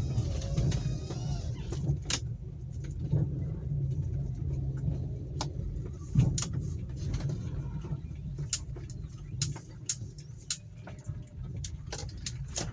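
Car interior road noise: a steady low rumble of engine and tyres on a rough paved lane, with scattered sharp clicks and rattles throughout.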